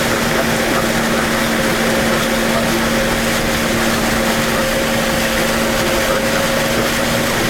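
Vehicle engine running at a steady pitch as it drives through water, over a constant rushing hiss.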